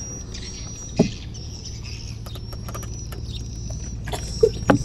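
Hand paddling of a small wooden boat: the paddle dipping and dripping in the water, with scattered light clicks and a couple of knocks of the paddle against the hull, one about a second in and a cluster near the end, over a steady low hum.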